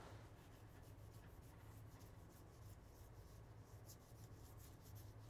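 Near silence: faint rubbing and light ticks of trading cards being slid and flipped in the hands, over a low steady hum.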